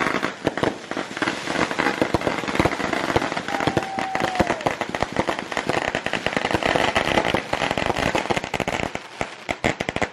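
Consumer fireworks going off in rapid succession: a dense run of crackling and popping, with a brief whistling tone about four seconds in.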